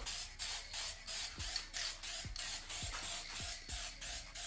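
Aerosol spray paint can hissing in short, quick bursts, about two to three a second, as the nozzle is pressed and released on each pass of black paint, with faint ticks between some bursts.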